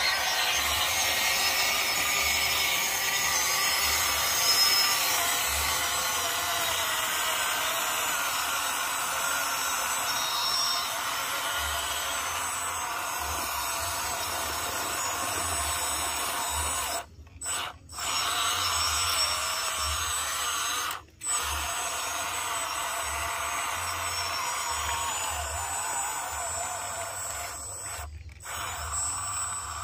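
Electric motor and gearbox of a WPL B16 six-wheeled RC truck whining steadily as it drives through mud, with a few short breaks in the second half.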